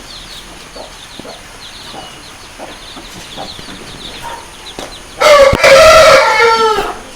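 A rooster crowing once, loud, starting about five seconds in and dropping in pitch at the end. Before it, faint high chirps of small birds.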